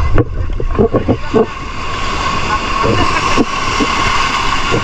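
Shallow seawater sloshing and splashing against legs and a boat hull in choppy surf, over a steady rush of waves. The splashes are irregular.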